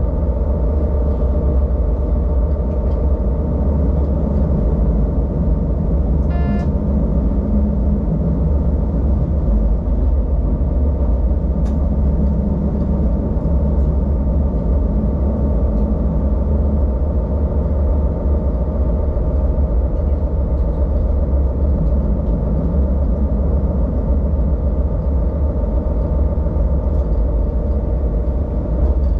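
An ÖBB diesel railcar running along the line, heard from the driver's cab: a steady low engine drone mixed with track rumble. A short high beep sounds once, about six seconds in.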